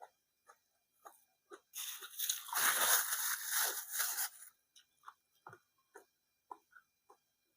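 A person chewing food close to the microphone, with small wet mouth clicks and a loud stretch of crunching from about two to four and a half seconds in.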